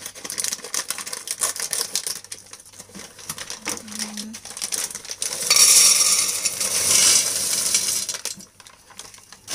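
Plastic bag of dried broad beans crinkling as it is cut open and handled, then about five and a half seconds in, the hard dried beans pouring into an empty stainless steel pot, a loud dense rattle lasting about two seconds.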